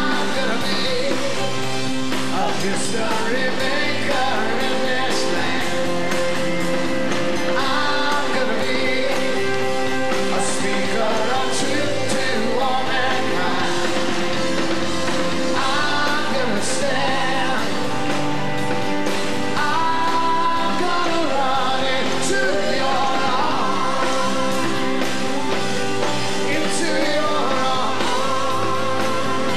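Live worship band playing an upbeat rock-style song, with drums and cymbals, keyboards, organ and electric guitar under voices singing.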